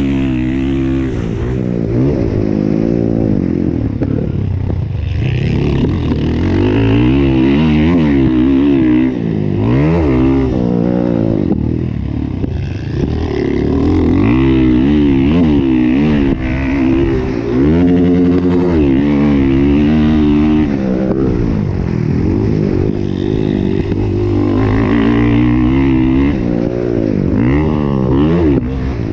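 Motocross bike engine at race pace, its revs climbing and dropping again and again as the rider works the throttle around the dirt track.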